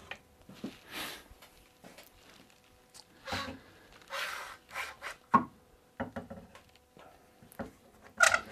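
A Quick-Grip trigger bar clamp being handled and fitted onto a wooden chair base: short rubbing and sliding noises of the bar and pads against the wood, and several sharp clicks as the clamp is set and its trigger squeezed. The sharpest click comes about five seconds in.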